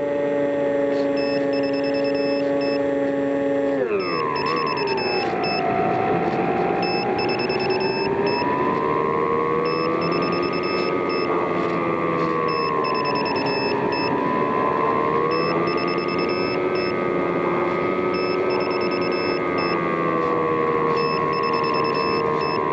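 A radio-controlled model plane's motor running at high speed. Its pitch drops sharply about four seconds in, then rises and falls gently as the plane flies around.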